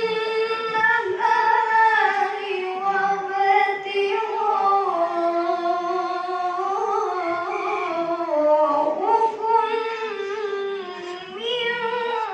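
A young woman's high voice reciting the Quran in a melodious chant, holding long notes that rise and fall slowly in ornamented glides.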